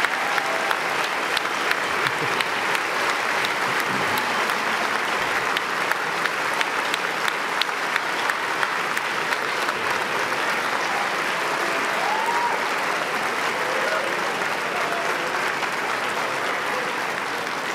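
A large audience applauding steadily, with many dense hand claps, easing off slightly near the end.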